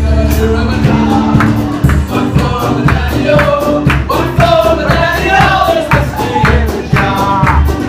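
Music with a singer over a band with a steady beat.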